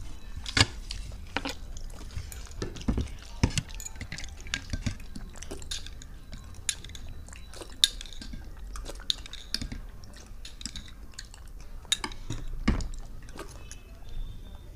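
Metal spoons clinking and scraping against small bowls of raita, with scattered sharp clicks of dishes and some chewing.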